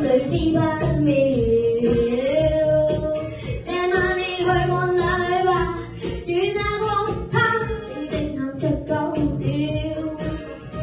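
A boy singing into a handheld microphone over a pop backing track with a steady beat.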